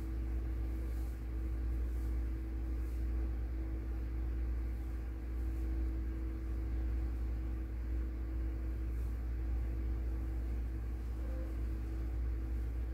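Steady low mechanical hum with a constant mid-low tone running through it, unchanging throughout.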